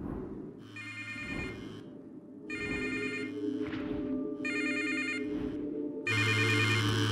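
Mobile phone ringing with an electronic warbling ringtone, four rings about two seconds apart, each louder than the last. A steady low drone of tones runs beneath from about two seconds in.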